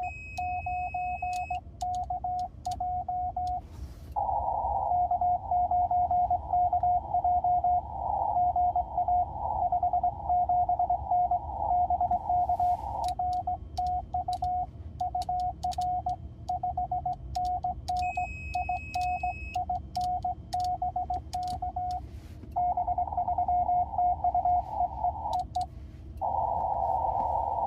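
Morse code on a ham radio transceiver: a single steady tone keyed on and off in fast dots and dashes, heard through a narrow CW filter with a band of receiver hiss that swells whenever the keying pauses. Faint clicks of static run underneath, and a short higher beep sounds twice.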